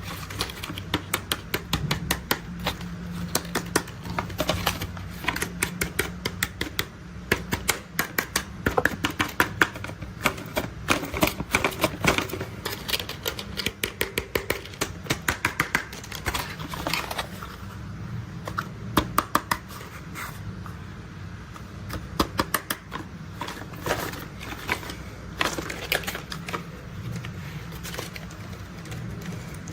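Toy construction vehicles being tapped and handled: quick runs of sharp clicks and taps, several a second, thinning out with short pauses in the second half.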